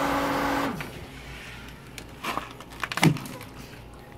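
Variable-speed pool pump motor running with a steady hum, which cuts off abruptly a little under a second in when its keypad button is pressed. A few knocks and handling noises follow, the loudest about three seconds in.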